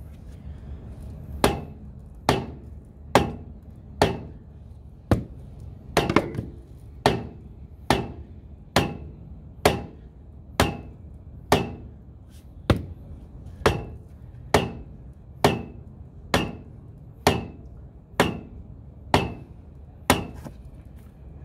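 Rubber mallet blows on the end of a PVC sewer pipe, a steady run of about two dozen strikes a little over one a second. The blows drive the new pipe inch by inch inside an old, collapsing Orangeburg sewer line.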